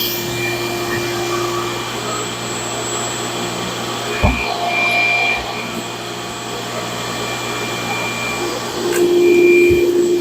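Dust extraction running with a steady drone and hum while the black walnut slab is being cut, a faint high whine coming and going, and a single knock about four seconds in.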